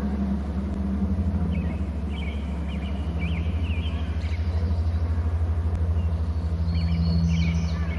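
High, quick chirping bird calls in two bouts, the first starting about one and a half seconds in and the second near the end, over a steady low hum and rumble that is the loudest sound throughout.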